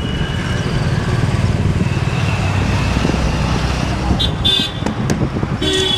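Roadside traffic noise: a motor vehicle's engine running close by, then two short horn toots, about four seconds in and near the end.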